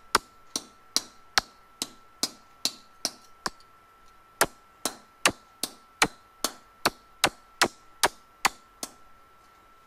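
Rawhide mallet striking annealed copper sheet laid on a steel bench block, gently flattening the air-chased texture. A steady run of light blows, about two and a half a second, with a short pause about three and a half seconds in, stopping near the end.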